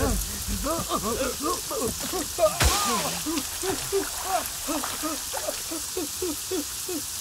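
Steady heavy rain, with a man's voice over it in short, repeated anguished cries or sobs, two or three a second. A sharp thud comes about two and a half seconds in.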